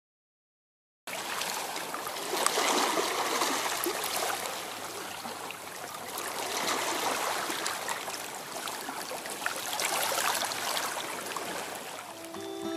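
Shallow water rippling over pebbles: a steady rush with many small clicks, swelling and easing every few seconds. It starts about a second in.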